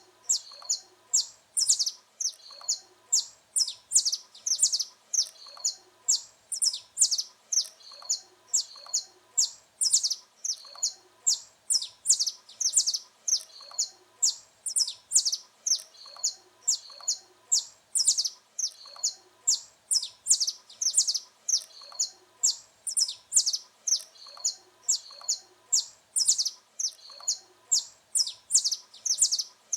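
Saffron finch singing: a rapid, unbroken string of short, high chirping notes, two to three a second, repeated in phrases.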